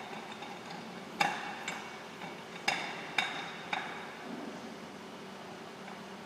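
Sharp metallic knocks and clinks from panel-beating work on a Volkswagen Golf's front left fender, about five irregular strikes, each with a short ringing tail. The loudest comes about a second in, and the strikes die away after about four seconds.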